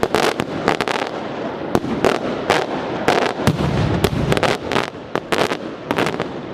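Fireworks going off in a rapid, uneven string of sharp bangs, about three a second, over a constant crackling rumble.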